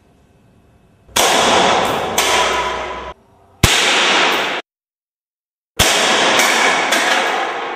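M4-style rifle firing in rapid bursts, each sharp-starting and lasting about a second, the first beginning about a second in, with a dead-silent break in the middle.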